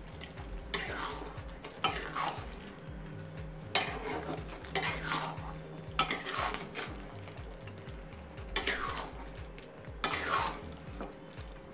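Metal spatula scraping and knocking against a kadhai while stirring chicken in thick masala, with about six irregular strokes.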